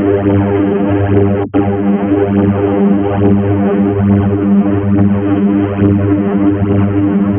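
Synthesized robot sound effect: a buzzy electronic tone pulsing in a steady repeating pattern, with one very short break about a second and a half in.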